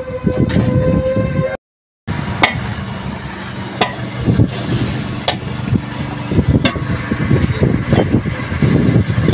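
A steel bar strikes and prises at a steel multi-piece truck wheel rim while an old tyre is being dismounted, giving irregular sharp metallic knocks about once a second. Under the knocks runs a low steady mechanical hum, and the sound drops out briefly after about a second and a half.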